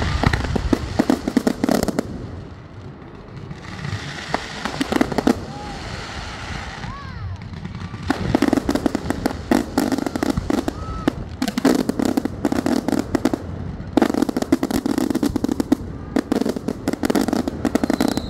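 Fireworks display: repeated volleys of rapid crackling pops as aerial shells burst, in clusters a couple of seconds long with short lulls between.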